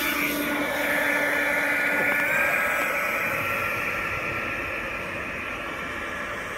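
Electric ducted fan of a fast RC boat running at full power: a steady high whine over hissing spray, growing a little fainter as the boat races away across the water.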